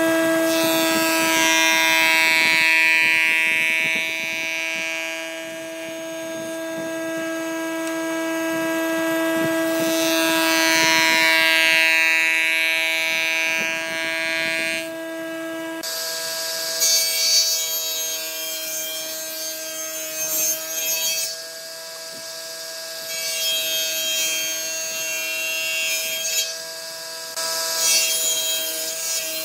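A jointer running with a steady hum as its cutterhead planes the face of a wooden half-disc in two long passes. About halfway through, the machine hum changes and a table saw cuts the wood in several short bursts.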